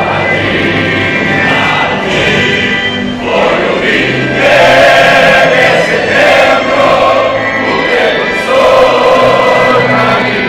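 A large stadium crowd of football fans singing a chant together in long, held sung phrases.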